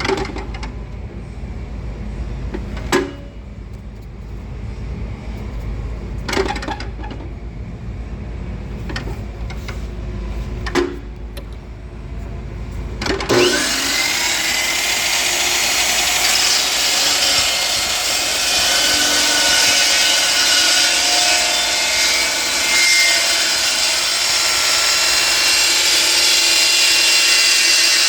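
A few scattered knocks over a low hum, then about 13 seconds in a chop saw's motor starts up and runs steadily at speed, its blade trimming a plumbing elbow.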